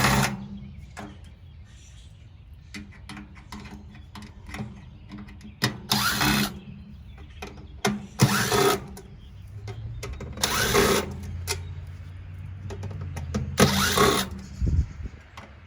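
Power drill spinning in four short bursts of under a second each, a few seconds apart, typical of backing out screws while taking apart a tankless water heater.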